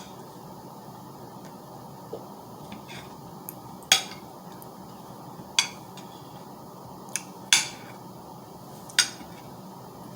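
Cutlery clinking against a dish, four sharp clinks a second or two apart with a few lighter ticks between.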